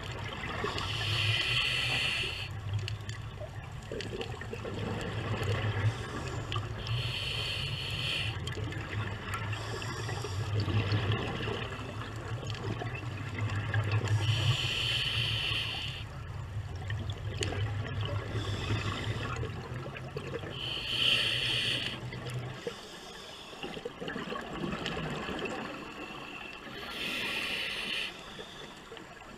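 Scuba diver breathing through a regulator underwater: five bursts of exhaled bubbles, each about a second and a half long, roughly every six seconds. A low steady hum runs underneath and stops about two-thirds of the way through.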